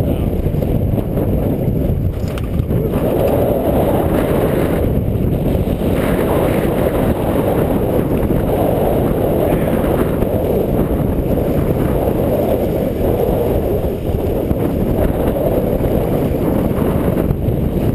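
Strong wind buffeting a GoPro's microphone on a sailboat under sail, a loud, steady low rumble with gusts rising and falling.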